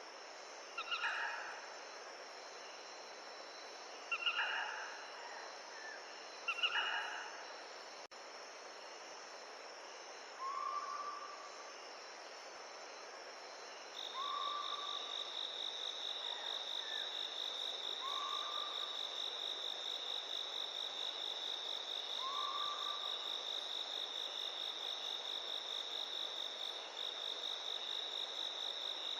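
A steady high-pitched insect trill, like a cricket's, starts abruptly about halfway through and then runs on without a break, over a constant soft hiss. Before it comes an animal call repeated four times, a couple of seconds apart. Short single rising calls follow every four seconds or so.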